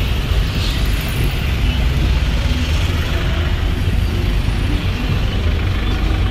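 Busy city-street traffic, with buses and cars running past and a steady low rumble.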